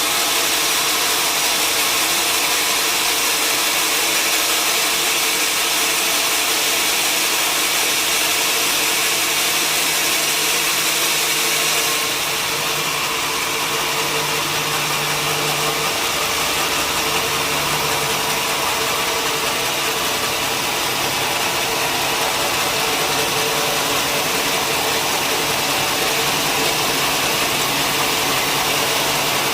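Sawmill machinery running steadily: a continuous mechanical noise with a steady hum and hiss, its tone shifting slightly about twelve seconds in.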